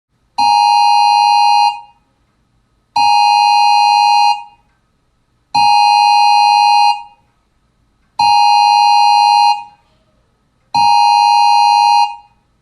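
Loud electronic emergency-alert tone: a steady, buzzer-like beep of about a second and a half, sounding five times at even intervals about two and a half seconds apart.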